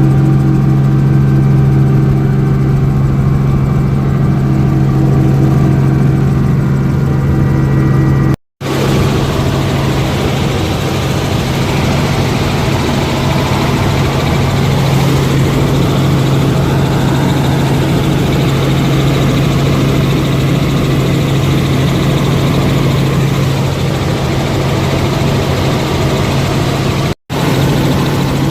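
Helicopter engine and rotor running with a loud, steady low drone. It breaks off for an instant twice.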